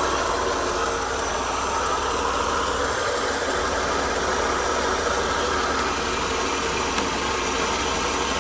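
Mercedes-Benz W124 300E's straight-six engine idling steadily as it warms up.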